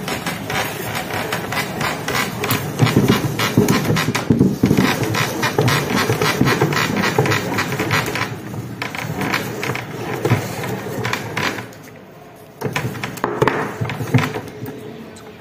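Rapid scraping, rattling and clicking of metal and plastic as ground ring-chip crumbs are cleared by hand from a hand-cranked meat grinder's cutter and plate. The noise is densest early on, drops off briefly about twelve seconds in, then resumes with a few sharp knocks.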